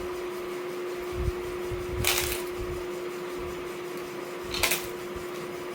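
Crunchy singju salad being bitten and chewed close to the microphone: two short, loud crunches about two seconds in and near the end, over a steady low hum.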